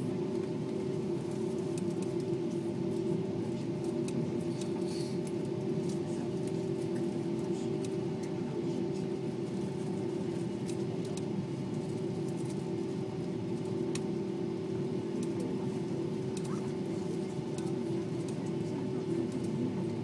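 Jet airliner engines and cabin noise heard inside the cabin while the aircraft is on the ground before take-off: a steady hum with a held tone, at an even level, with faint scattered ticks.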